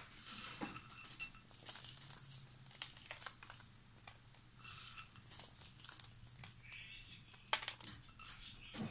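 Faint crinkling and rustling with scattered light clicks while chopped nuts are sprinkled by hand over a layer of cake cream.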